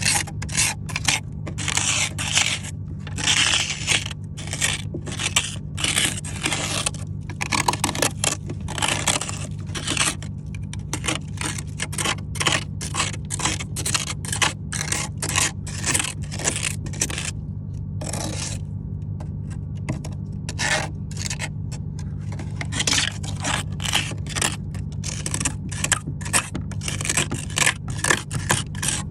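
Frost being scraped off the inside of a mini fridge's freezer compartment, in quick repeated rasping strokes, about two a second with a brief pause in the middle. A steady low hum runs underneath.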